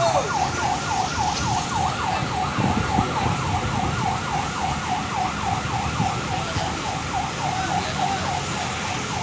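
Electronic siren in a fast yelp, its pitch sweeping up and down about three to four times a second without a break, over the low running of bus engines.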